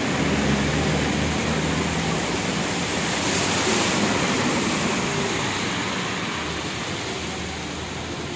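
Heavy rain falling on a flooded road, a steady hiss. A heavy vehicle's engine runs close by for the first few seconds, and tyres swish through the standing water about three to four seconds in as a bus passes.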